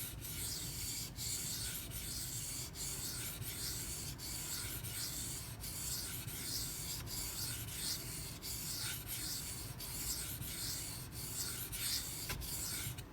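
154CM steel knife blade stroked back and forth on a 1000-grit silicon carbide sharpening stone: a gritty scraping in regular strokes, about three every two seconds, refining the coarse 240-grit scratch pattern toward the apex.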